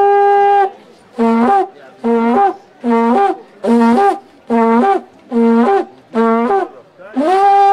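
Long wooden trumpet blown hard. It opens with one held note, then gives seven short blasts at about one a second, each starting on a low note and jumping up to a higher one. A long held note begins near the end.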